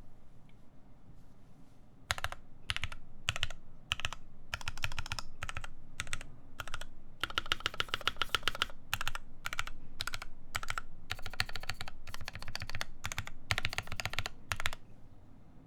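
Typing on a CannonKeys Devastating TKL mechanical keyboard with lubed C3 Tangerine linear switches, an FR4 plate and PBT keycaps: bursts of rapid keystrokes broken by short pauses. The typing starts about two seconds in and stops about a second before the end.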